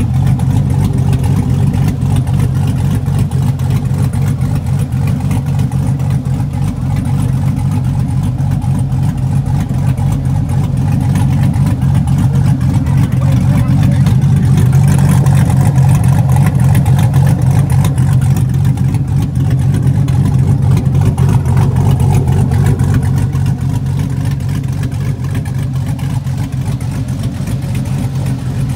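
Car engine idling steadily with a deep, even hum that swells a little about halfway through.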